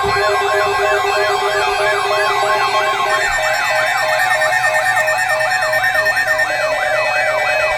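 Electronic siren-style alert tone on a radio emergency broadcast: a warbling pitch that rises and falls about three times a second over steady and pulsing tones. A pulsing lower tone drops out about three seconds in.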